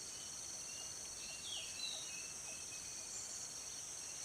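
Steady high-pitched insect drone with a rapid pulsed trill, and a few brief falling bird chirps about one to two seconds in and again near the end.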